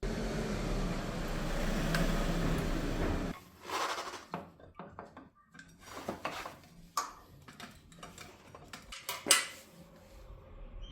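A steady rushing noise for about three seconds that cuts off suddenly, then a series of light metallic clinks and clicks from tools and brake parts being handled.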